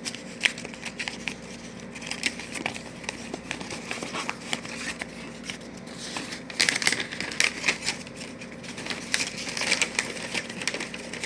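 Packaging crinkling and rustling as it is handled and worked open, with many small irregular clicks; the handling gets busier and louder in the second half.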